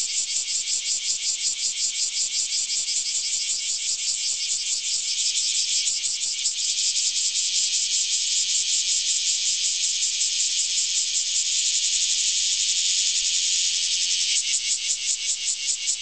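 A cicada singing close by: a loud, high, rapidly pulsing buzz that turns into a steady buzz about six seconds in and goes back to pulsing near the end.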